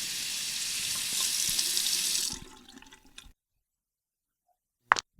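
Water tap running into a sink, a steady splashing hiss that is shut off about two and a half seconds in and trails away in a few drips. One short sharp click near the end.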